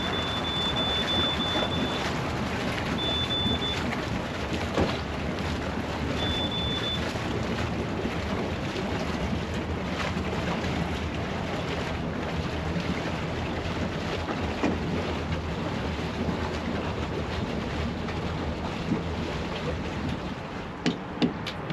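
Twin engines of a 1995 Larson 310 Cabrio cabin cruiser running at low speed while docking, a steady low drone mixed with wind and rain noise. A thin high tone comes and goes three times in the first seven seconds.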